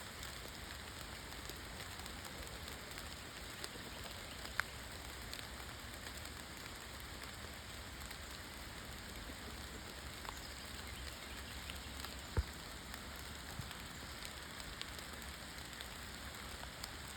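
Steady faint hiss-like noise with scattered light ticks, a couple of them sharper than the rest.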